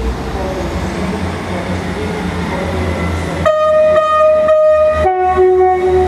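Class 158 diesel multiple unit's engine running and growing louder as it pulls away, then about three and a half seconds in its two-tone horn sounds: a long high note, then a lower note.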